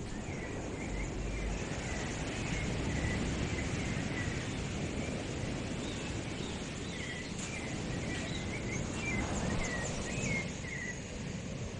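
Birds chirping in many short, repeated calls over a steady rushing background noise; the chirps die away shortly before the end.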